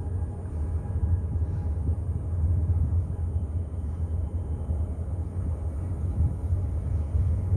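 Low, steady rumble of the container ship ZIM Virginia passing close by as it heads out of port.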